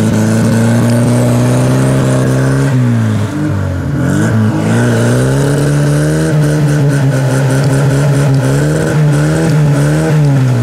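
Car engine revving hard and held at high revs while the car pushes through the off-road section; the revs dip about three seconds in, climb higher and hold, then fall off near the end.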